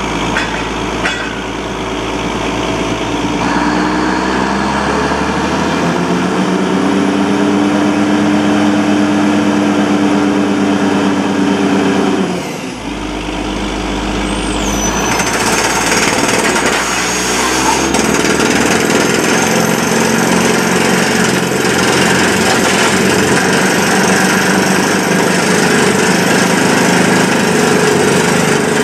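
Truck-mounted borewell drilling rig running, its engine note rising over the first dozen seconds. After a short dip it turns into a loud, steady rush of compressed air blowing rock dust and cuttings out of the bore as the down-the-hole hammer drills.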